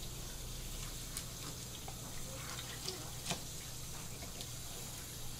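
Tap water running steadily onto a cutting board while a knife scrapes at a red sea bream's scales and head, giving scattered sharp clicks. The loudest click comes a little past the middle.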